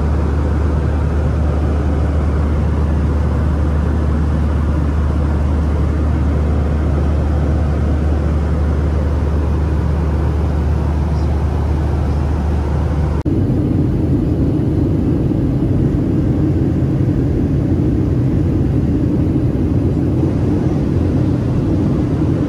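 Airliner cabin noise in flight: a steady roar with a deep hum underneath. About thirteen seconds in it cuts abruptly to a different steady roar, higher in pitch, with no deep hum.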